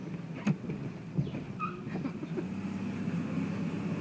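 Car running steadily on the road, heard from inside the cabin: a steady engine and road hum, with a couple of sharp knocks or rattles about half a second and just over a second in.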